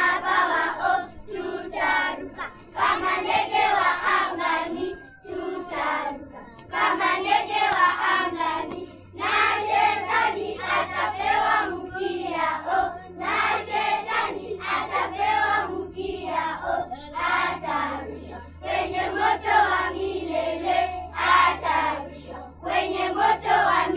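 A children's choir singing, phrase after phrase, with steady low notes in the accompaniment underneath that come in more strongly from about the middle on.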